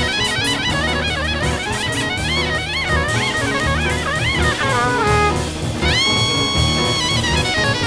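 Jazz quartet playing at a fast tempo: a saxophone plays quick, winding runs over bass, piano and drum kit, then holds one long note from about six seconds in.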